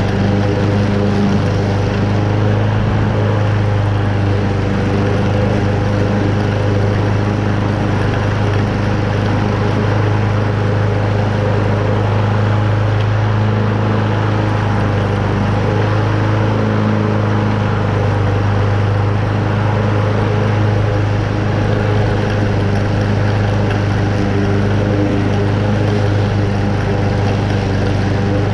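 Toro Super Recycler walk-behind lawn mower's Honda single-cylinder engine running steadily under load, its blade cutting moderately wet, tall grass.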